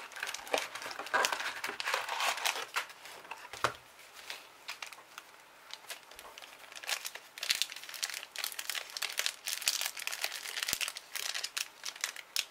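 Foil trading-card booster packs for the World of Warcraft TCG crinkling as they are pulled from their cardboard display box and turned over in the hands. The crinkling comes in two busy stretches with a quieter lull around the middle.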